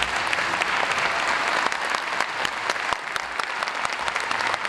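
Audience applauding steadily, the dense clatter of many hands clapping at once.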